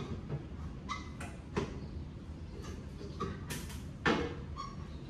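Scattered metal clinks and knocks, about half a dozen of them, from fitting long-tube exhaust headers under a car. The loudest come about a second and a half in and about four seconds in.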